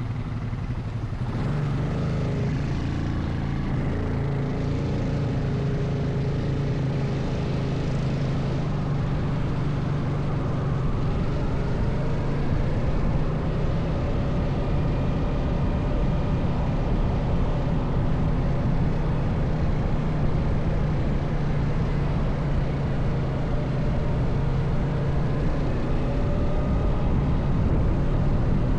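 ATV engine running steadily while under way, holding an even speed.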